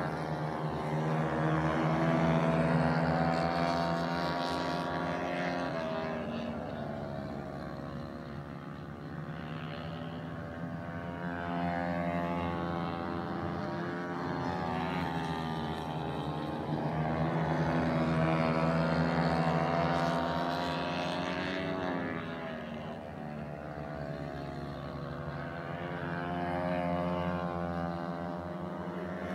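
Dirt-track racing motorcycle engines revving up and down as the bikes lap the oval. The sound swells and fades several times as riders come past and move away.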